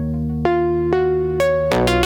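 Electronic ambient music: a sustained synth bass under a melody of plucked notes, each struck about half a second apart, with a chord change near the end.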